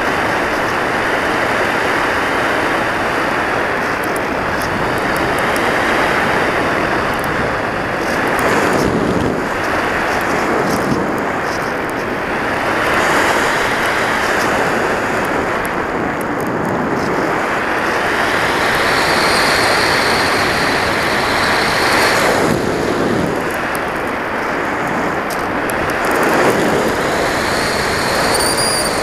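Air rushing over an RC sailplane's onboard camera microphone in flight, a steady loud rush that swells and eases with airspeed. A thin whistle rides over it, wavering up and down in pitch and climbing near the end.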